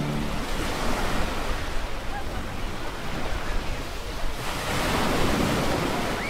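Sea surf washing onto a sandy shore, a steady wash of water that swells as a wave comes in about four seconds in. Music fades out in the first half second.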